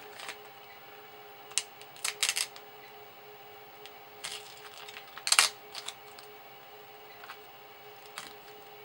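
Paper adhesive label crinkling and tapping as it is handled and pressed onto a plastic battery case: a few short crackles, the loudest about five and a half seconds in. A faint steady hum runs underneath.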